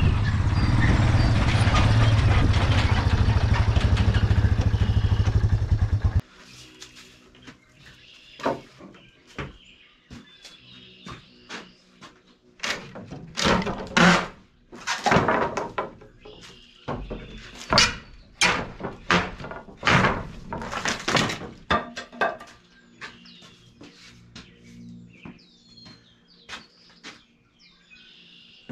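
A loud steady rumble for about six seconds that cuts off suddenly, then old dry wooden wall boards of a corn crib being pried and torn out by hand: an uneven run of sharp cracks, knocks and clatters.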